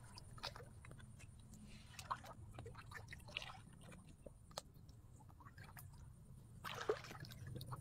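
Faint, scattered splashes and sloshes of muddy water as hands grope through it, with a brief louder burst near the end.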